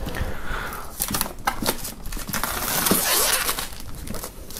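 Plastic shrink-wrap film being pulled and crumpled off a boxed set, crinkling and crackling with scattered sharp crackles, densest in the second half.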